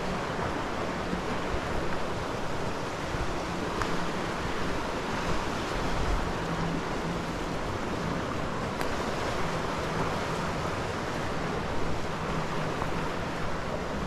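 A steady rushing noise, with a faint low hum coming and going underneath.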